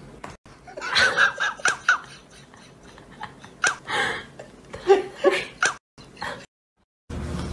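People laughing in short giggling bursts, broken off about six seconds in; after a moment of silence a steady low hum starts near the end.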